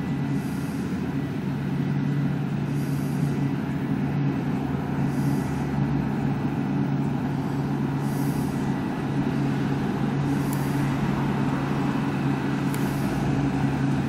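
New Holland CX8.70 combine harvester running steadily under load while cutting barley: a constant engine drone mixed with threshing noise. A faint high hiss comes and goes every two to three seconds.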